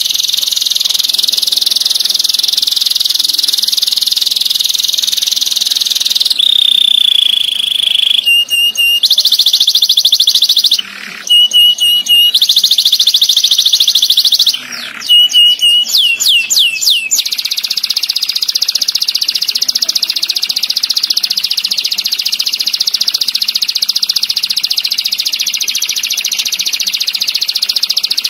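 Domestic canary singing fast, tight rolling trills. About six seconds in comes a held whistled note, then for about ten seconds choppy phrases of rapid notes and quick downward sweeps, after which a long even roll resumes.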